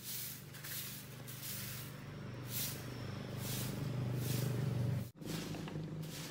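Broom swishing over dry leaves and gravel in repeated strokes, over a steady low hum that grows louder and breaks off briefly about five seconds in.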